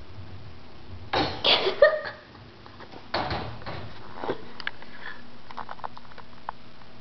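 A few loud bumps and rustles, then light irregular clicks from a hamster's clear plastic exercise ball rolling on a hardwood floor.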